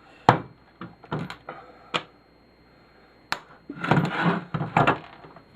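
Hand-dismantling of a hospital bed actuator: a few sharp knocks and clicks with short spells of scraping and rattling as parts and wiring are pulled loose, busiest about four seconds in.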